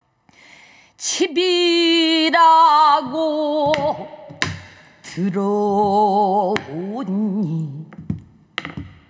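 Female pansori singing in Korean, long held notes with a wide vibrato, starting about a second in, accompanied by a few sharp strokes on a buk barrel drum between the phrases.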